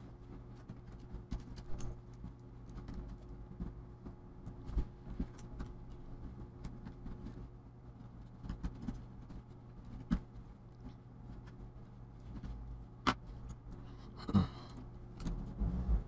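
Light clicks and taps of small plastic and metal parts being handled inside an opened laptop as the Wi-Fi antenna leads are routed and pressed onto the Wi-Fi card. There is a sharp click about thirteen seconds in and a short rattle just after, over a faint steady low hum.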